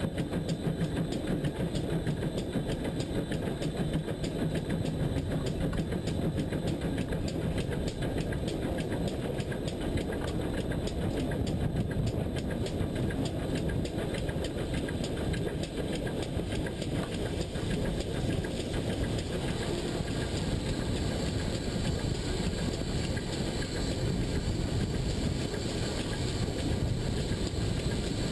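Steady rumble of a GWR pannier tank steam locomotive running along the track, heard from the front of the engine.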